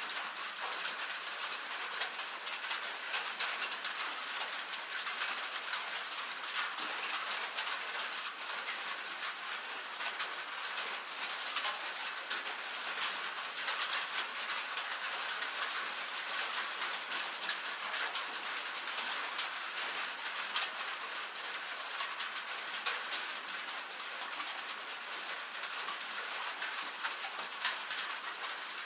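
Light rain pattering on a metal roof: a steady, dense ticking of many small drops that keeps an even level throughout.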